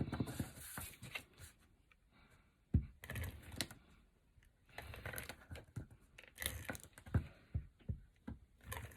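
Cardstock and designer paper being handled and pressed into place on a work table: intermittent rustling with irregular soft knocks, the sharpest a little under three seconds in.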